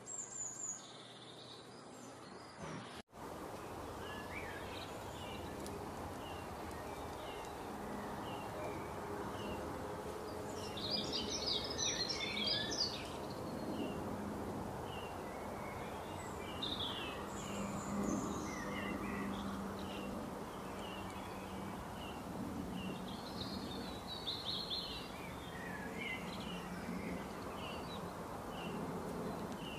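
Songbirds chirping and singing over a steady outdoor background hiss, busiest about a third of the way in. There is a short break in the sound about three seconds in.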